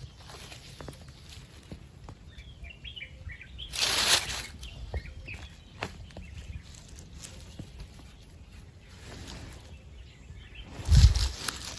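Hands rustling and scraping through a bed of dry pine needles while digging up mushrooms, with a louder brush of needles about four seconds in and a rustle with a dull thump near the end. Faint bird chirps in the background.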